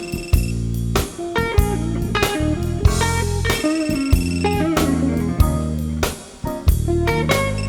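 Blues band playing an instrumental passage: electric guitar lines with bent notes over bass guitar and drum kit.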